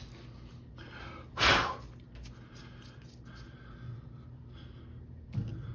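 A short, loud puff of breath close to the microphone about a second and a half in, with a smaller one near the end, over a steady low hum.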